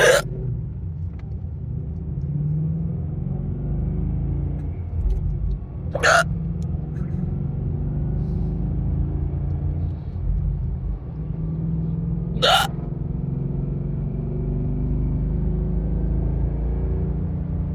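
A woman hiccupping three times, about six seconds apart, each a short sharp hic, over the steady low rumble of road noise inside a moving car.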